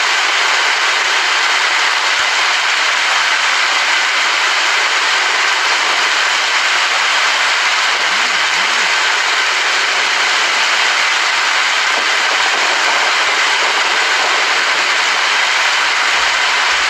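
Steady rain, a dense even hiss that does not change.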